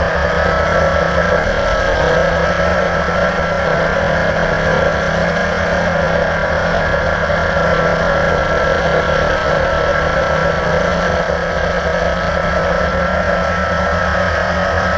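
Blade 350 QX quadcopter's motors and propellers running in flight: a steady whine that holds nearly one pitch, over a low buzz.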